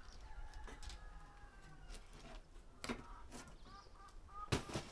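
Chickens clucking and calling, with a few sharp knocks, the loudest about four and a half seconds in.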